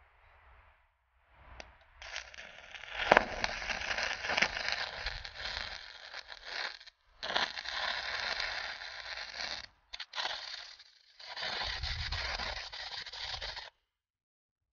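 DC stick (SMAW) welding arc crackling and sputtering as the electrode lays a weld on thin steel angle iron. It starts about two seconds in, drops out briefly three times and is restruck, then stops abruptly near the end. The amperage is still set for 3/16-inch plate, which the welder judges too hot for this thin angle.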